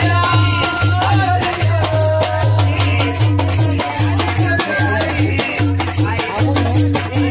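Rajasthani folk music played live: a dholak barrel drum beats a steady rhythm, khartal wooden clappers rattle and click fast, and a harmonium holds chords under a voice singing.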